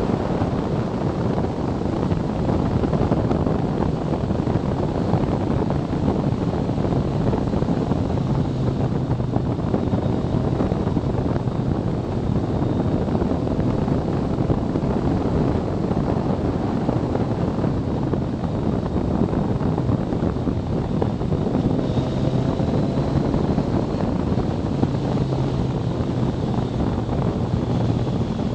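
Wind rushing over an action camera's microphone on a BMW K1300S motorcycle at road speed, with the bike's inline-four engine running steadily underneath.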